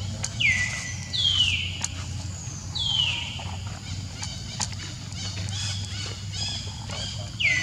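Baby macaque crying in distress: high-pitched calls that each slide down and level off, three in the first three seconds and another near the end, with fainter cries between.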